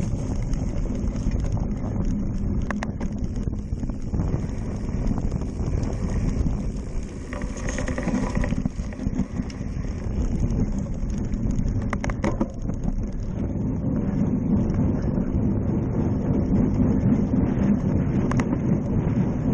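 Wind buffeting the microphone of a handlebar-mounted camera on a cyclocross bike being raced, over the steady rumble of tyres rolling on dirt and the bike rattling, with a few sharp knocks. The wind grows louder in the second half as the bike speeds up on pavement.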